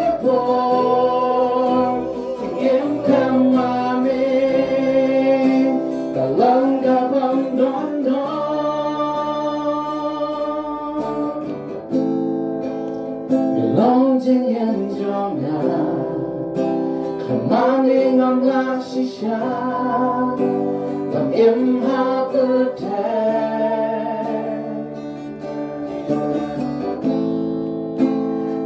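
A man and a woman singing a gospel song together to a strummed acoustic guitar.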